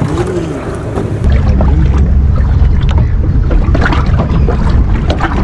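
Steady low rumble of wind buffeting the microphone, coming in abruptly about a second in, with a few faint knocks and clicks.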